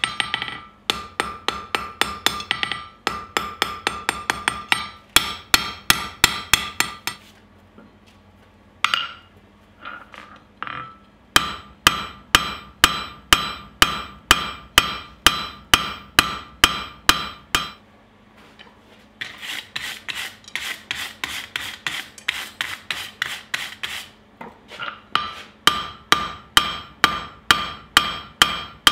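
Blacksmith's hand hammer striking a red-hot bar on a steel anvil, in fast runs of about three ringing blows a second. There is a longer lull with a few scattered taps about a third of the way in, and short breaks later on.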